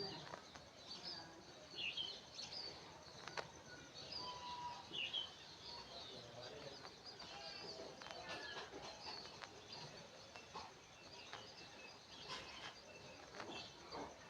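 Faint bird chirps and calls scattered throughout, with a few sharp light clicks or taps.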